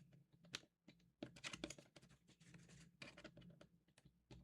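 Faint scattered clicks and scraping of small plastic keyboard-case parts handled by hand, as rubber O-rings are fitted around the case gaskets.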